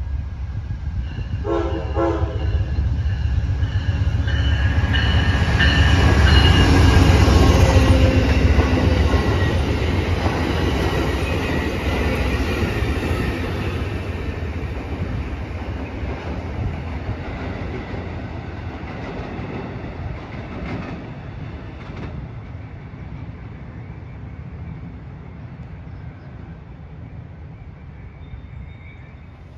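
Amtrak passenger train passing close by: a short horn note about two seconds in, then the rumble of the locomotive and wheels on the rails. The rumble is loudest a few seconds later and fades as the train moves away.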